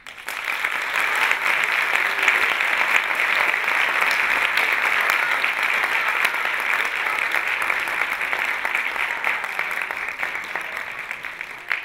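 Audience applauding, a dense steady clapping that starts as the music stops and thins out near the end into a few last claps.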